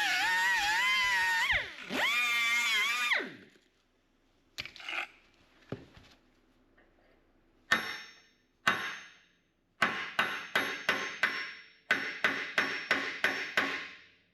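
Music ends about three seconds in. Then a hammer strikes a bent steel pin in a skid-steer blade's skid shoe, trying to drive it out: two single ringing metal blows, then a quick run of about three blows a second.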